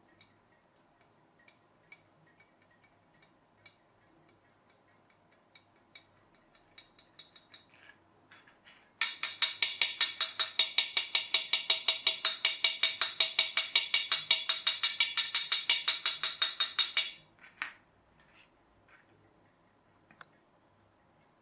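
A container of baking powder shaken hard over a super-glued joint, a rapid, even rattle of about six shakes a second that lasts about eight seconds and stops abruptly. Light taps and handling clicks come before and after it.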